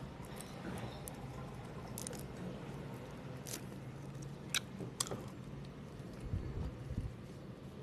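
Close-miked chewing of homemade mochi ice cream: soft, sticky mouth sounds with a few sharp clicks spread through, over a steady low hum.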